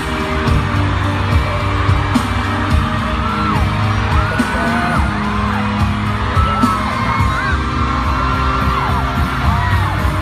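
Loud pop music with a steady beat, with voices singing and whooping over it.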